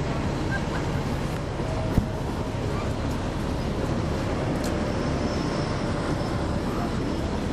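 Caterpillar C13 ACERT diesel engine of a NABI 40-SFW transit bus running, heard from the rear seats inside the cabin as a steady low rumble, its exhaust sounding almost as if the muffler had a hole. A sharp click about two seconds in.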